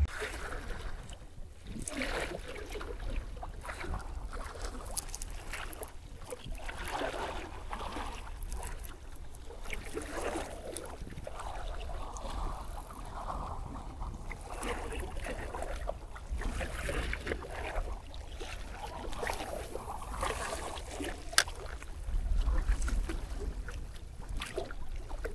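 Wind buffeting the microphone over small waves washing against a rock seawall, with a single sharp click about 21 seconds in and a stronger gust just after.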